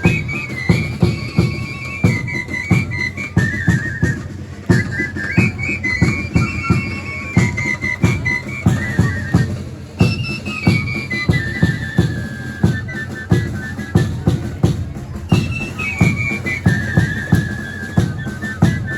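Festival dance-troupe music: a shrill flute or whistle melody playing short falling phrases over a steady, driving beat of drums.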